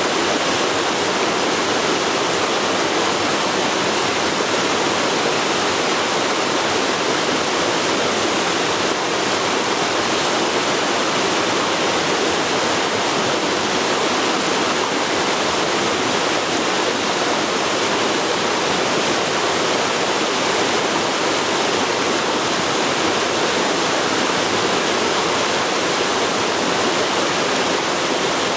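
Forest river flowing over rocks: a steady, unbroken rush of running water.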